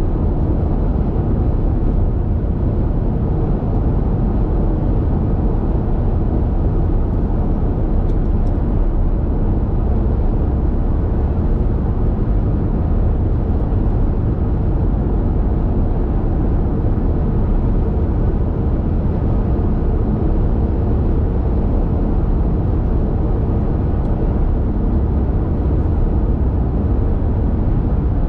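Steady low rumble of a car's tyres and engine at highway speed, heard from inside the cabin.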